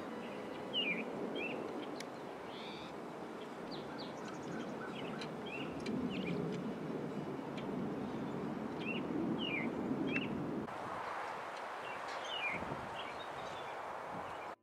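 Wind blowing in gusts, with birds chirping over it: short downward-sliding chirps, repeated in small groups.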